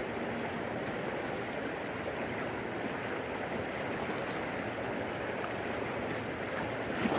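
Creek water running steadily, with one short knock near the end.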